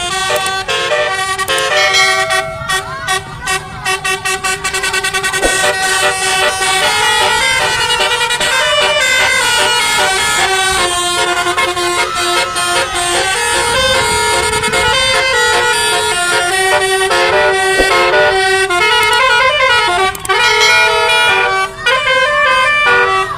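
Telolet bus horn, a multi-trumpet Basuri-type air horn driven by a melody module, playing a fast tune of stepped notes. A few seconds in there is a stuttering, rapidly pulsed passage, and there are short breaks near the end.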